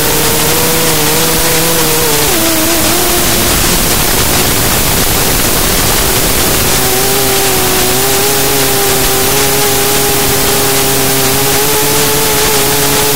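Race quadcopter's electric motors and propellers whining in flight over a loud rush of wind. The pitch drops a little over two seconds in, sinks under the rush for a few seconds, and returns steady from about halfway.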